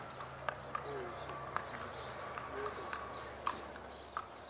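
A horse's shod hooves clopping irregularly on paved ground at a walk, with two short, low falling bird calls in between.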